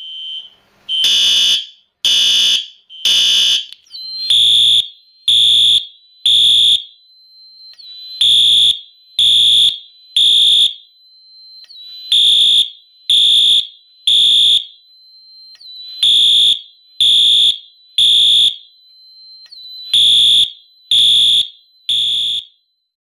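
Fire alarm horn-strobes sounding together in the temporal-three (code 3) evacuation pattern: three loud horn blasts about a second apart, a short pause, then again, with a faint steady high tone between the blasts. The horns cut off just before the end, the alarm circuit switched off.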